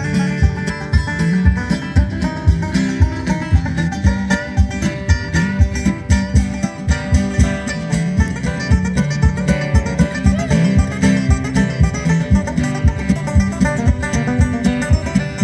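Instrumental break of an acoustic folk song: a strummed acoustic guitar keeping a steady rhythm with a plucked string instrument playing the melody, no singing.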